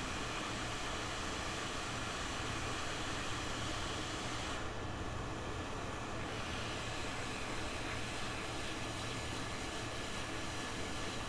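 Steady hiss of blowing air with a faint high whistle in it. The upper hiss thins out for about a second and a half about five seconds in.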